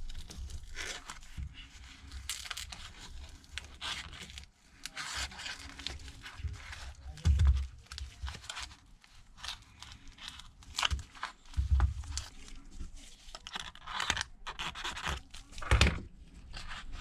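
Thin plastic pry card scraping and crackling through softened screen adhesive as it is worked around the edge of a phone's display, with a few dull knocks from handling the phone.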